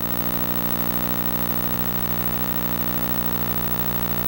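Steady electrical buzz: mains hum with a dense stack of overtones, coming through the microphone and sound system.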